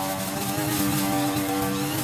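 Small petrol engine of lawn equipment running steadily at an even pitch.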